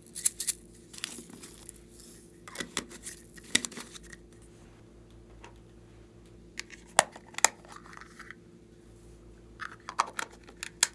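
Small plastic containers being handled and opened: scattered clusters of sharp clicks and rattles of lids and a box latch, with a rustle of glitter shaken out of a jar.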